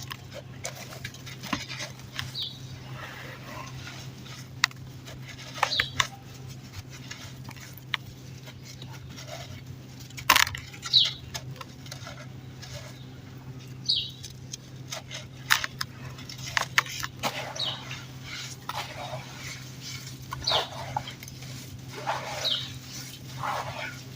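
Crunchy dry dirt crumbling, with scattered sharp cracks and crunches. Short high chirps come every second or two over a steady low hum.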